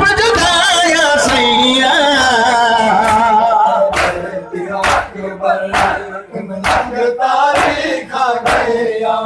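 Male voices chanting a noha, a mourning lament. From about four seconds in, a crowd of men beats their chests in unison (matam), one loud slap about every second, with the chant carrying on between the slaps.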